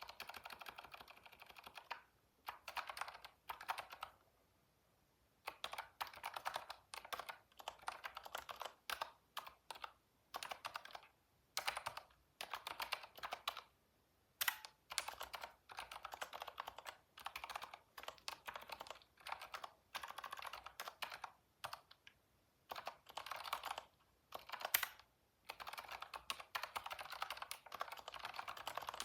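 Typing on a computer keyboard, in bursts of quick keystrokes broken by short pauses, with an occasional louder single key strike.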